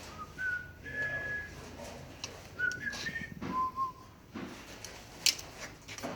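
A man whistling a few short notes of a tune, stepping up and down in pitch, with scattered clicks and taps of work on the wiring, the sharpest click about five seconds in.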